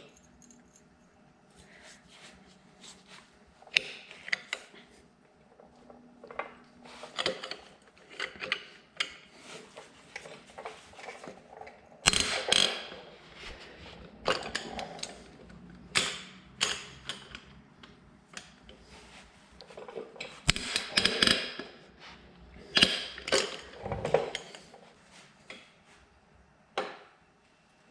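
Hand ratchet on a cheater bar working engine bolts: irregular runs of ratchet clicking mixed with sharp metal tool clanks, several of them loud.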